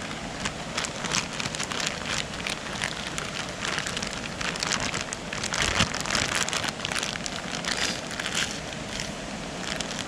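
Steak cubes and vegetables sizzling and crackling in a hot nonstick skillet on a camp stove, the crackle growing busier about halfway through as a liquid is poured into the pan.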